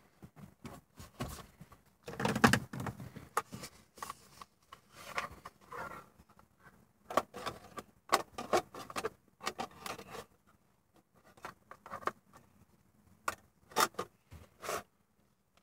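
Plastic trim and parts of a car's center console being handled and pushed into place: irregular clicks, knocks and rattles, loudest in a cluster about two seconds in.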